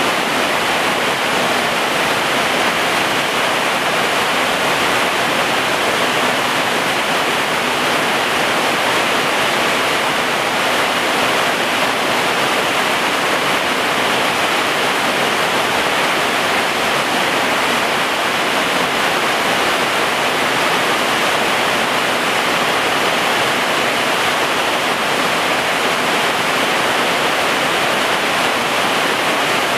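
Heavy rain pouring down on garden plants and ground: a steady, even hiss that does not let up.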